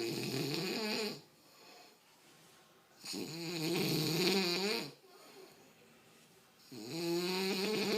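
A pig snoring: three long, rasping snores about three and a half seconds apart, each a pitched drone lasting one and a half to two seconds.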